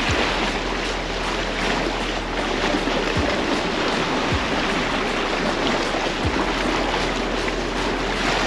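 Sea waves washing against a rocky shore, a steady rushing noise.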